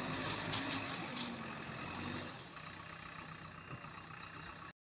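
JCB 3DX backhoe loader's diesel engine running steadily, easing a little in level about halfway through; the sound cuts off suddenly near the end.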